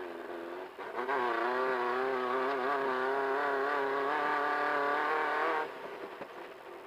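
Class 1500 desert race car engine heard from inside the car. About a second in it climbs to high revs and holds there with a slightly wavering pitch over rough ground, then drops back sharply about a second before the end.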